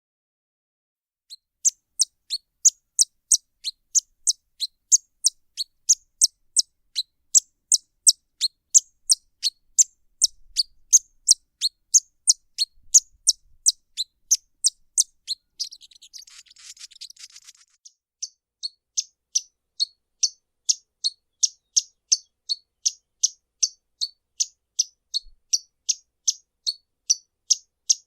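Violetear hummingbird singing a long series of sharp, high chip notes, about two a second. The notes break off briefly with a soft hissing buzz about two-thirds through, then start again.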